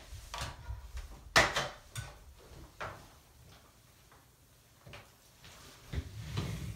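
Knocks and clacks of parts being handled as the top is taken off the Hyla vacuum's water basin, the loudest about a second and a half in, then a quiet stretch before a few more near the end.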